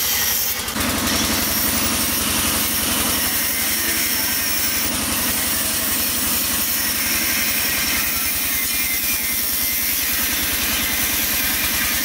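Handheld electric angle grinder with a cut-off disc cutting through steel bar, running steadily with a whine and grinding noise. About a second in, the sound changes as a second grinder, cutting steel bars and tubing, takes over.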